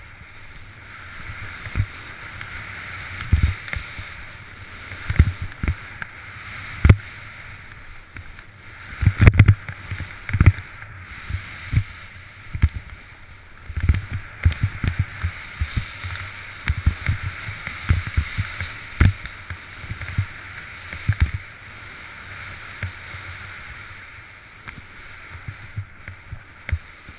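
Snowboard riding through powder snow: a steady hiss of the board sliding and snow spraying, broken by frequent irregular low thumps and knocks as the board rides over bumps.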